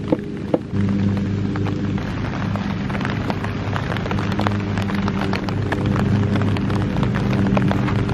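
Rain falling on a black plastic tarp, many sharp drop ticks throughout, over a steady low hum.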